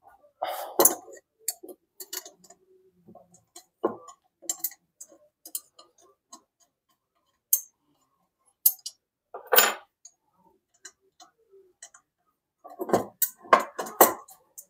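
Spanners clicking and clinking on nuts and bolts as a steel bar is unbolted from a metal bracket. There are scattered light metallic ticks, a louder clunk about two-thirds of the way in, and a quick run of knocks near the end as the bar comes free.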